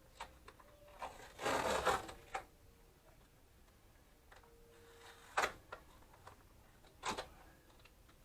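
Handling noises on a workbench: a short rustling scrape about one and a half seconds in, then two sharp clicks or knocks of small parts being set down, with a few lighter ticks between.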